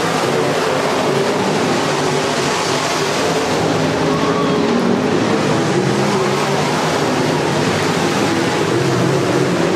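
IMCA Modified dirt-track race cars' V8 engines running around the oval, several engines at once making a loud, steady, overlapping drone with no break.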